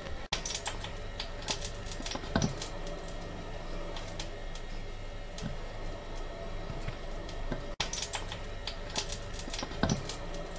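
Raw whitefish fillets being handled and dredged in flour on ceramic plates: soft pats, squishes and light taps, with a louder knock about two and a half seconds in and another near the end.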